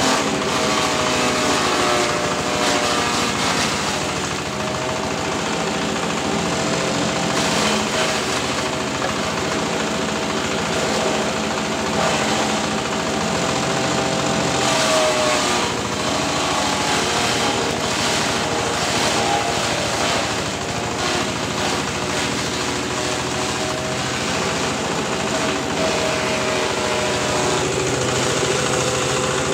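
Grass chopper machine driven by an 8 HP diesel engine, running steadily, with scattered short crackles over the engine note, mostly in the first half.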